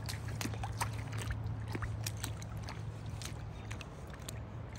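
Small rubber rain boots splashing and sloshing through a shallow muddy puddle, a string of short, irregular splashes, over a steady low hum.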